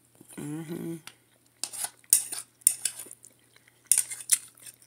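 Metal fork scraping and clinking against a glazed ceramic plate as food is scooped up, several sharp strokes over about three seconds.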